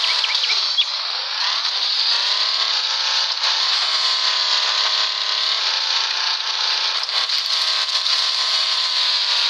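A vehicle engine running under load. Its pitch dips and climbs with the revs in the first couple of seconds, then holds fairly steady with slow rises and falls.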